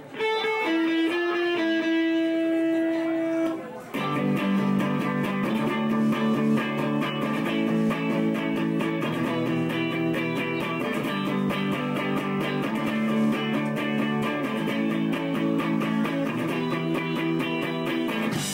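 Live rock band: a few single held notes ring out, then about four seconds in the full band comes in with electric guitars and a steady drum beat.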